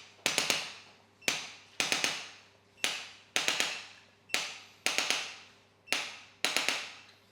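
Sharp percussive clicks in a strictly regular pattern, one click and then a quick run of three, repeating about every second and a half. Each click rings away briefly before the next.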